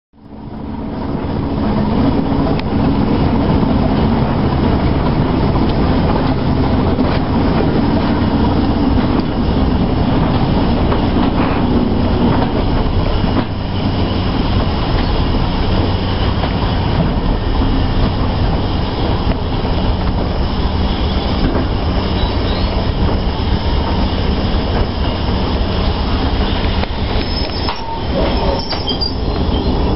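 Train running past with a steady, loud running noise that fades in over the first second.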